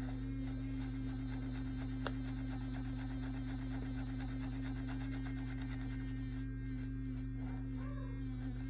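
A steady low hum holding one pitch, with a single short click about two seconds in.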